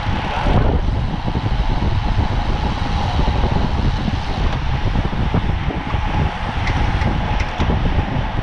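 Wind rushing over the microphone of a camera riding along in a bicycle criterium: a steady rush with a heavy low rumble, and a brief falling whoosh about half a second in.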